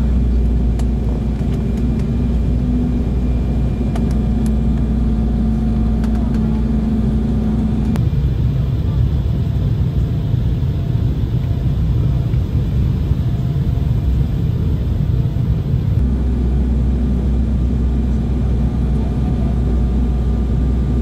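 Steady cabin drone inside an Embraer ERJ190 airliner in flight: engine and airflow noise with a low hum. The drone changes character abruptly about eight seconds in and returns to its first sound about three-quarters of the way through.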